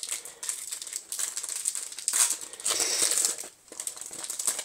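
Foil wrapper of a Yu-Gi-Oh! booster pack crinkling and tearing as it is opened by hand. The crinkling runs continuously, loudest about halfway through, and stops abruptly at the end.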